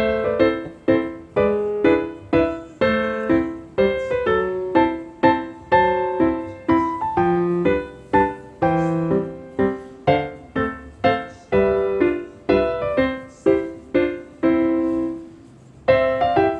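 Background piano music: a light, even melody of single struck notes that fade away, with a brief pause near the end.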